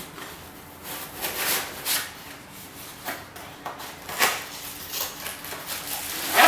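Packaging being handled as items are taken out of a box: irregular rustling, rubbing and light knocks, with one louder scrape or knock near the end.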